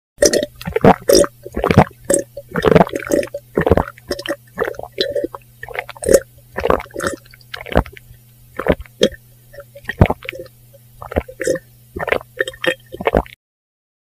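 A person drinking: a long, irregular run of short wet gulping and swallowing sounds, about two or three a second, over a faint steady low hum. It cuts off suddenly near the end.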